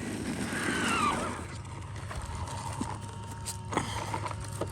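Traxxas Maxx RC monster truck's electric motor whining, falling in pitch as the truck slows about a second in, followed by a few sharp clicks.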